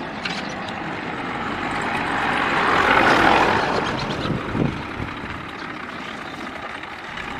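Massey Ferguson tractor towing a loaded trolley driving past. Its engine grows louder to a peak about three seconds in, then fades as it moves away.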